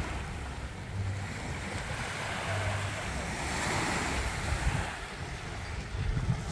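Waves washing onto a sandy beach, a steady surf wash, with wind rumbling on the microphone.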